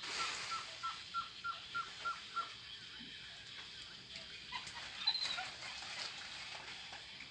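Animal calls: a run of short, high, evenly spaced notes, each falling at its end, about three a second for the first two and a half seconds, then a few scattered calls, over a steady hiss.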